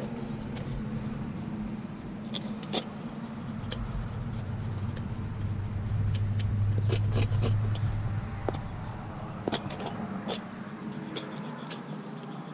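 Kitchen knife scraping the skin of a scaleless catfish on concrete, with scattered sharp clicks of the blade. Under it a low vehicle engine rumble runs throughout and swells to its loudest around the middle.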